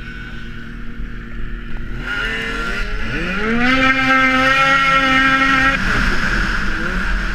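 Ski-Doo snowmobile engine idling, then revving hard as the sled pulls away. Its pitch climbs steeply, holds high at speed, and eases off about six seconds in.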